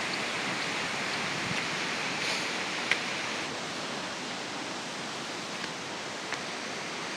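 Steady rushing of a waterfall, an even hiss of falling water, with a few faint clicks over it.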